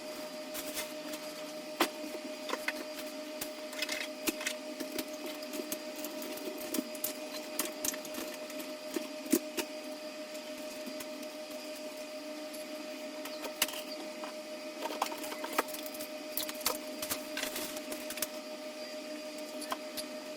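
A steady mechanical hum with irregular light clicks and knocks over it, busier in two stretches.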